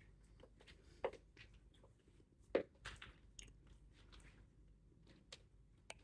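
A person chewing food close to the microphone, faint, with a few sharp clicks and smacks now and then.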